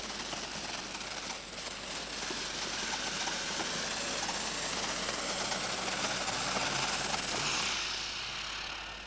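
Pulling tractor's very high-revving six-cylinder Perkins diesel engine at full power under load, a steady howl that sounds like an aircraft turbine. It builds slightly, then dies away near the end.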